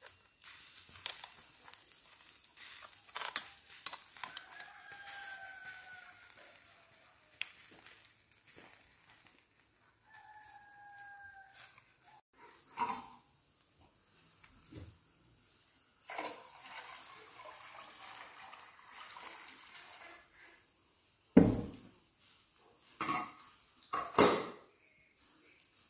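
Fat sizzling and crackling as it drips onto hot charcoal under a roasting duck and meat skewers, with scattered small clicks. A rooster crows twice in long drawn-out calls, and near the end come two loud knocks as a metal samovar is set down by the fire.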